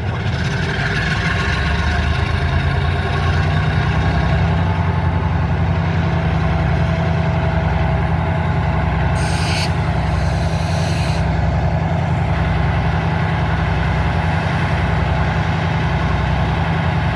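Diesel freight locomotive engine running steadily with a low, pulsing drone. A brief hiss of air comes about nine seconds in.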